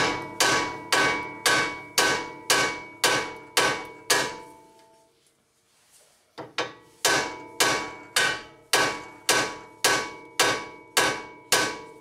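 Hammer blows on the steel steering knuckle of a 1997 Honda Accord beside the ball joint, sharp and ringing, about two a second in two runs with a pause of about two seconds between them: hammering to shock the tapered ball joint stud loose, which stays stuck tight.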